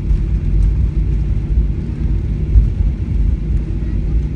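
Boeing 737-800 cabin noise on the ground just after landing: a loud, steady low rumble of engines and rolling wheels.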